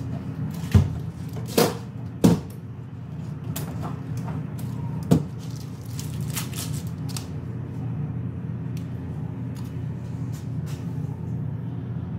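A few sharp knocks and clicks, four loud ones in the first five seconds and lighter ticks after, as a barber handles his tools and readies a straight razor, over a steady low hum of room machinery.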